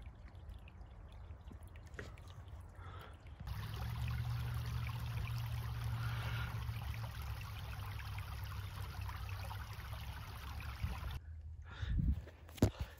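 Shallow creek water trickling over stones, quiet at first and louder from about three seconds in, over a low rumble. Near the end, a few thumps of footsteps on creek gravel.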